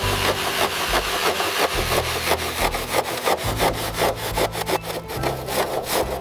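Rapid back-and-forth scraping or rubbing strokes by hand on a surface, several a second in an uneven rhythm.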